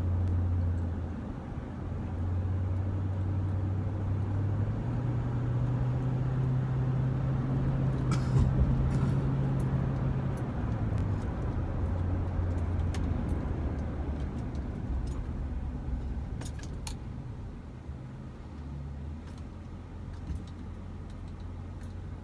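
Motor vehicle engine running, its low hum stepping up in pitch about five seconds in and dropping back about halfway through, with scattered light clicks and rattles.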